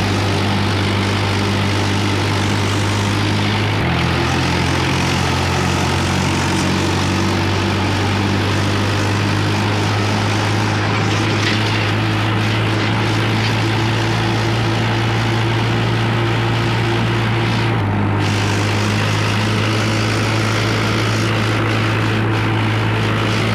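Swaraj 843 tractor's diesel engine running steadily under way, a loud low drone that steps to a new pitch about four seconds in and again near the end.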